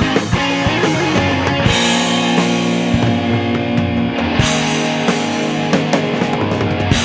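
Rock band playing an instrumental passage: sustained guitar notes over a drum kit, with steady drum hits and cymbals.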